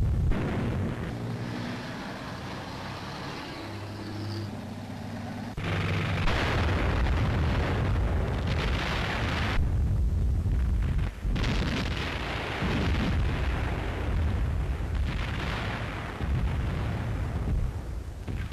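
Battle sound effects from an old war newsreel: heavy rumbling explosions and gunfire in loud, dense sections that change abruptly several times, with a low steady drone in the first few seconds.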